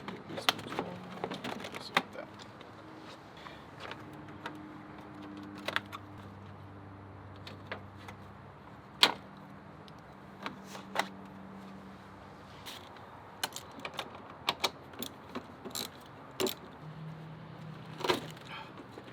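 Scattered sharp clicks and metallic clinks of hand tools and parts being handled while the stock air intake is taken apart in the engine bay, at irregular intervals with no steady rhythm.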